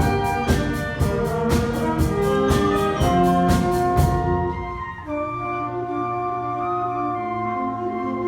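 School wind band playing live: brass and woodwinds over a steady percussive beat. About four seconds in, the beat stops and the band drops back to softer held chords with a low bass line underneath.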